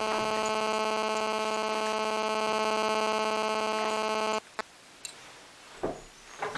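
Steady electrical buzz at one fixed pitch, rich in overtones, cutting off abruptly about four and a half seconds in; a few faint knocks follow.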